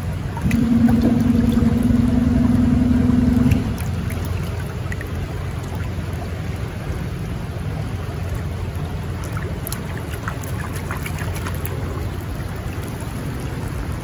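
River water trickling and splashing at the bank over a steady rushing noise. A steady hum at one pitch, with overtones, is the loudest sound for about three seconds near the start.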